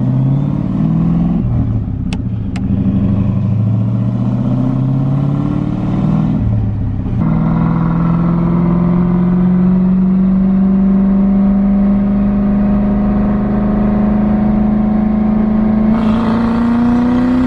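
Turbocharged Ford Crown Victoria's 4.6-litre V8 under boost on a hard acceleration pull: the engine note climbs, drops at gear shifts about a second and about seven seconds in, then climbs slowly through a long pull in the next gear. A rushing hiss joins near the end.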